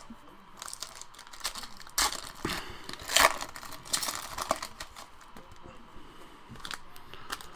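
Plastic wrapper of a trading-card pack crinkling and being torn open, in irregular crackly bursts, the loudest about three seconds in.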